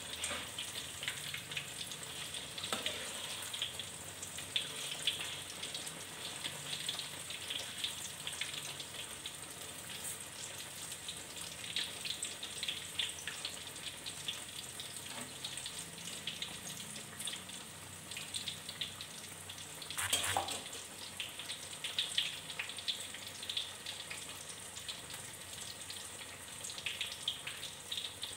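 Corn fritters crackling and sizzling as they fry in hot oil in a wok, while a metal spatula works them in the pan. One louder clack comes about twenty seconds in.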